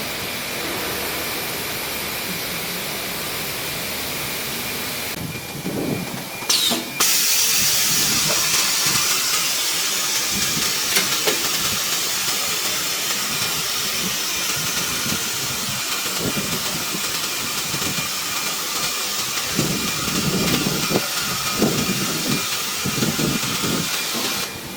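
Nesting CNC router running: a steady hiss with a faint high whine. It breaks off briefly about five to seven seconds in and comes back louder.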